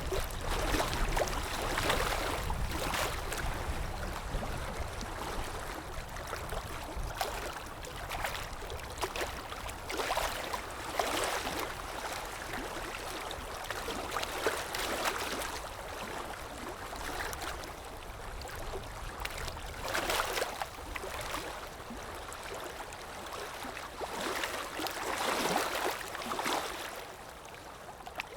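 Water lapping and splashing in irregular swells every few seconds, over a low steady rumble.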